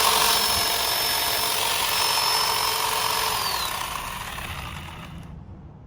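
Ryobi 18V 10-inch cordless chainsaw running at full speed with a high electric whine, starting abruptly; the whine dips in pitch about three and a half seconds in, and the sound fades out near the end.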